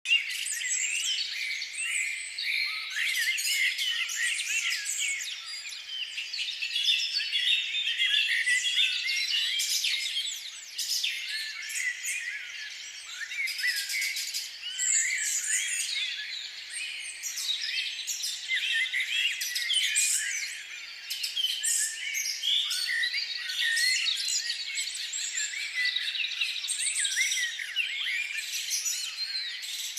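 A dense chorus of many birds chirping and singing at once, overlapping high calls and trills with no break.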